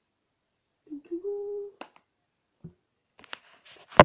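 A short steady hummed note about a second in, followed by a click, then a run of clicks and knocks ending in one sharp knock near the end.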